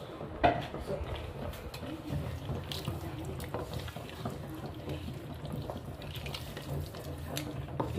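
Wooden spoon stirring a thick tomato and vegetable sauce in a stainless steel pot: wet, sloppy stirring with small scrapes and taps, and one sharp knock of the spoon against the pot about half a second in.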